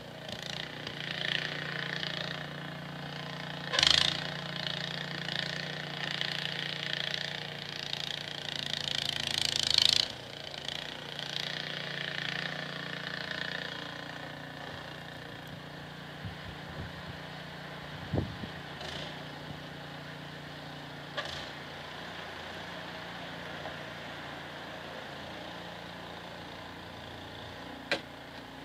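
An engine running steadily at constant speed. Over the first ten seconds loud hissing, scraping surges come and go, ending abruptly, and afterwards a few sharp knocks stand out, one near the end.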